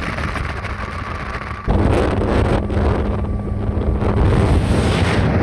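Motorboat running at speed, its engine hum under heavy wind buffeting on the microphone. About two seconds in, the rumble jumps suddenly louder and stays there.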